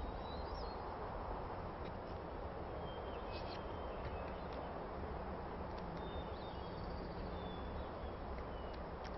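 Outdoor ambience: a steady background hiss and low rumble, with faint bird chirps a few times.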